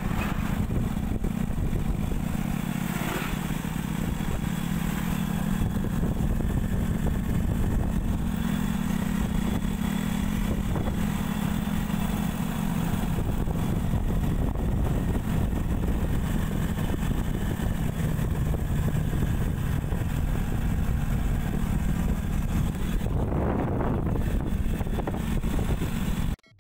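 Euro Sport R 110 motorcycle running steadily on the road, its engine mixed with wind and road noise on the microphone; the sound cuts off suddenly near the end.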